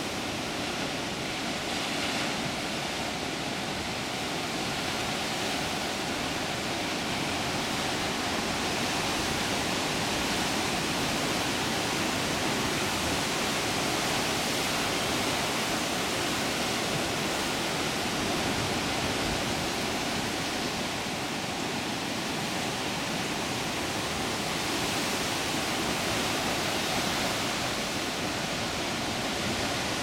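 Ocean surf breaking against jagged lava rocks: a continuous rushing wash of waves and foaming water that swells and eases only slightly.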